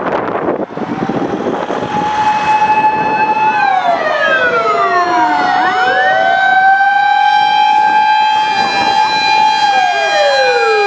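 Fire pump engine's sirens wailing: about a second in, a siren tone rises and holds high, then slides down and back up, while a second siren tone overlaps and crosses it, sliding down again near the end.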